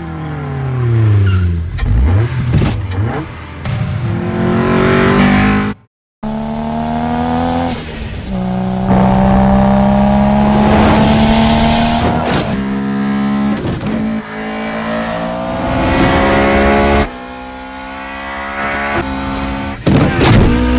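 Film sound effects of Mitsubishi sports car engines and exhausts: an engine's pitch falls as it slows, then after a brief cut to silence about six seconds in, engines accelerate hard with rising pitch, broken by several gear changes, and a quick burst of revving near the end.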